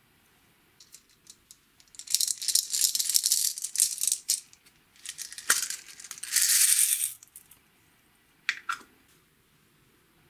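Small silver beads rattling in a clear plastic container, in two busy stretches of a couple of seconds each, as the container is shaken and the beads are tipped out onto clear slime. A few light ticks come before and after.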